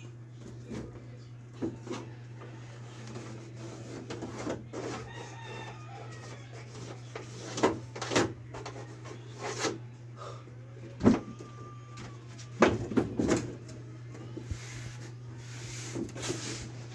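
A rooster crowing several times, mixed with scattered sharp knocks and bangs from carpentry work, over a steady low hum.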